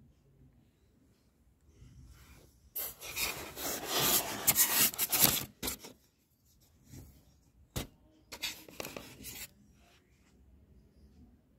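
Rustling and rubbing of plastic-wrapped spare-parts packaging as it is handled: a scraping rustle lasting about three seconds, a sharp click, then a shorter rustle of about a second.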